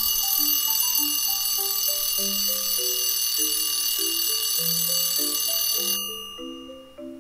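Alarm clock bell ringing continuously. It stops about six seconds in and the ringing dies away over the next second. A soft melody of single notes plays underneath.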